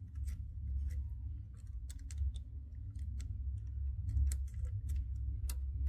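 Small irregular clicks and taps of fingers and fingernails on a flat camera cable and its plastic connector as it is worked into place on a 3D printer's circuit board, over a steady low hum.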